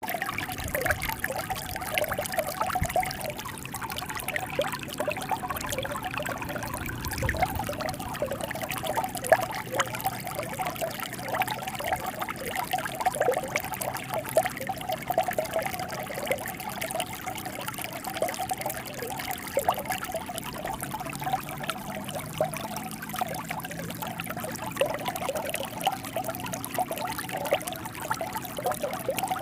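Water flowing and trickling steadily, with a constant dense gurgle.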